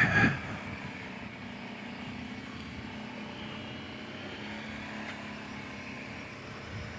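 Kawasaki Brute Force 750 ATV's V-twin engine running steadily on the trail, a faint, even drone.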